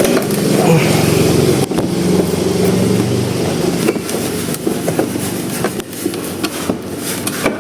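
A steady engine-like hum, with scattered clicks and creaks of an electric scooter's plastic body panels being pried loose.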